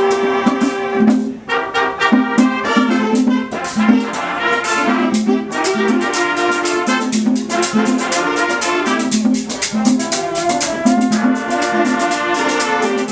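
Live wind band playing a merengue: brass carries the tune over a steady percussion beat, with a brief drop in level about a second and a half in.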